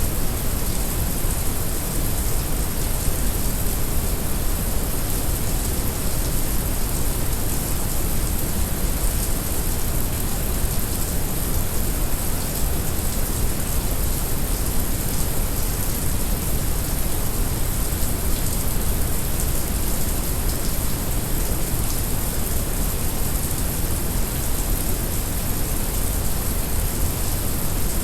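Heavy rain recording mixed with brown noise: a steady, unchanging wash of deep rumble under the bright hiss of the rain.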